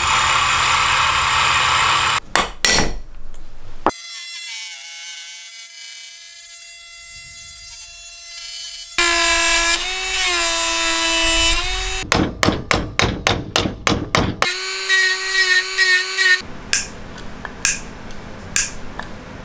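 Drill press boring into a wooden block with a large Forstner-type bit, then a handheld rotary tool whining at high speed as it carves wood, its pitch dipping under load, broken by a run of quick strokes about four a second. Near the end, light clicks as a hand screwdriver drives small screws.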